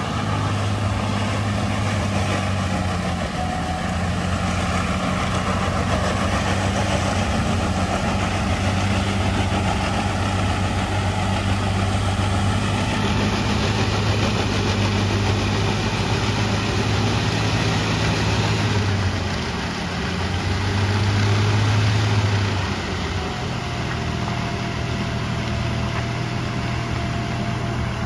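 Diesel engine of a heavily loaded multi-axle lorry pulling slowly up a steep hairpin bend, a steady deep engine drone under load. It swells louder about twenty seconds in, then drops back a little.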